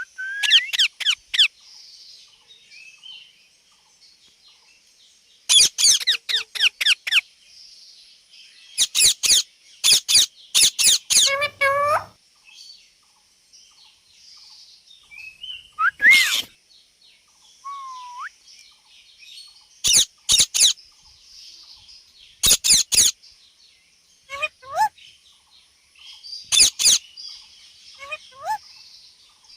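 Indian ringneck parakeet (rose-ringed parakeet) giving short volleys of shrill, squeaky calls and chirps, repeated every few seconds with pauses between.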